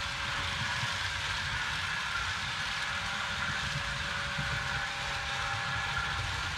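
Several Fleischmann model trains running at once around the layout: a steady rolling rumble of wheels on the track, with a thin steady hum over it.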